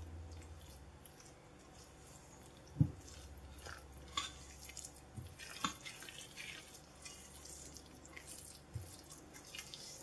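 Silicone spatula stirring wet grated-carrot batter in a stainless steel bowl: soft squelching and scraping, with a few light knocks, the loudest about three seconds in.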